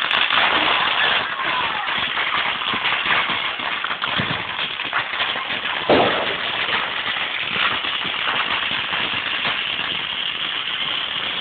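Fireworks crackling: a dense, rapid run of sharp pops that starts suddenly and keeps going, with one louder bang about six seconds in.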